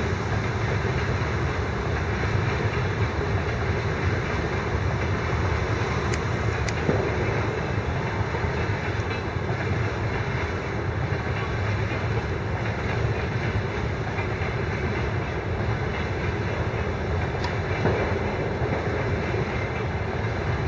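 A train passing on a railway line: a steady noise of wheels on rails that holds at an even level throughout.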